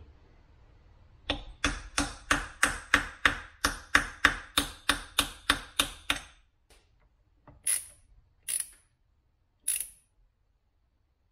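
Hammer tapping on the metal housing of a 1960s ride-on mower gearbox: a quick, even run of about sixteen blows, some three a second, then three sharper, ringing taps about a second apart.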